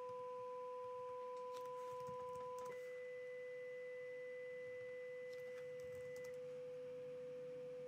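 Dual sine-wave test tones from the Smaart v8 signal generator: a steady 500 Hz tone with a second tone at 1 kHz. About two and a half seconds in, the second tone jumps to 2 kHz; it cuts out about six seconds in, leaving the 500 Hz tone alone. Faint keyboard clicks come as the frequency values are typed in.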